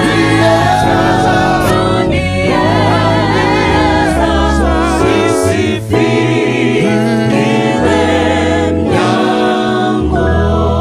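Gospel vocal ensemble of men's and women's voices singing in harmony into microphones.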